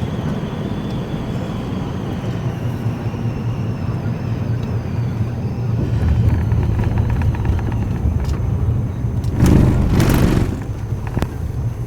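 Road and engine noise of a moving storm-chase vehicle, heard from inside: a steady low hum under tyre rush, with a louder rushing swell near the end.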